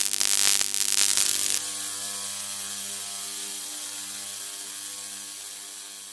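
Opening sound effect: a loud, dense rattling burst that cuts off about a second and a half in, followed by a sustained humming chord that slowly fades out.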